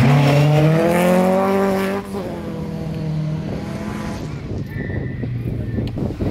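Opel rally car passing close at speed, its engine revs climbing for about a second; about two seconds in the sound drops away sharply and the engine carries on more faintly as the car moves off.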